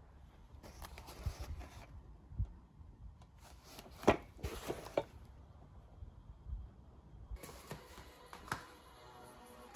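Scattered knocks and rustles of cardboard packaging and roof-rack slats being handled, with the loudest, sharpest knock about four seconds in.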